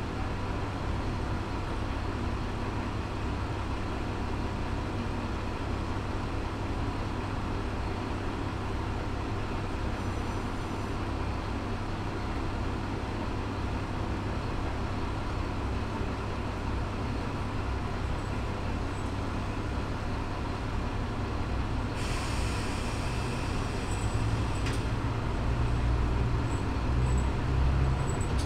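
Diesel railcar idling while stopped at a station, heard from inside the cab as a steady low rumble. About 22 seconds in a hiss of air starts along with a few sharp clicks, and near the end the engine's rumble grows louder.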